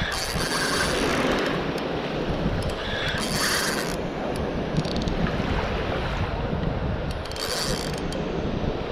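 Spinning reel being cranked to bring in a hooked fish, its gears whirring, with brighter spells of reel noise three times. Wind rumbles on the microphone underneath.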